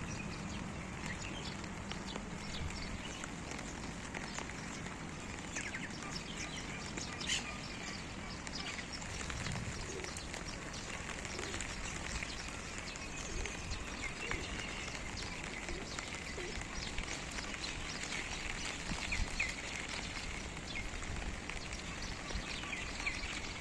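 Light summer rain falling steadily, with sharp ticks of single drops striking nearby surfaces, and birds chirping, most often in the second half.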